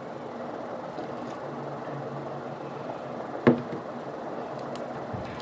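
Slime being mixed by hand, with one sharp click about three and a half seconds in over a steady background hum.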